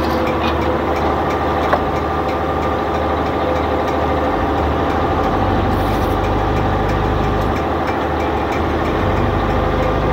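Fishing boat's diesel engine running steadily, its low rumble growing stronger about halfway through as the boat is moved forward. A single short click just under two seconds in.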